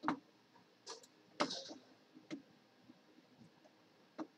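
A few faint, separate clicks, spaced irregularly, from writing pen strokes on a computer screen. There is a short soft noise about a second and a half in.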